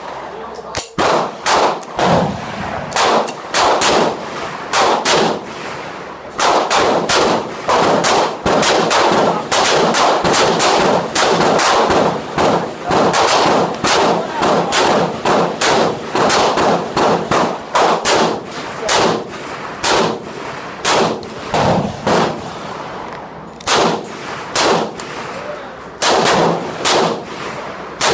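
Gunfire from several shooters at a firing range: rapid, irregular shots, often several a second and overlapping, each followed by a ringing tail. It runs without a break.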